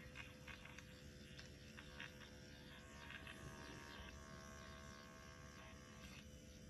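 Electric microneedling pen buzzing faintly and steadily as it is worked lightly over the skin of the face.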